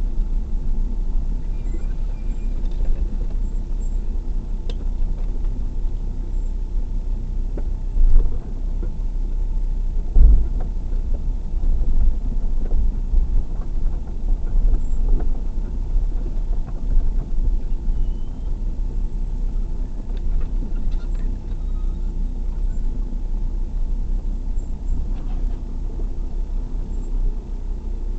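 Car engine running at low speed, heard from inside the cabin, driving slowly over a rough dirt track, with a steady low rumble. There are occasional knocks as the car jolts over ruts, the loudest two about eight and ten seconds in.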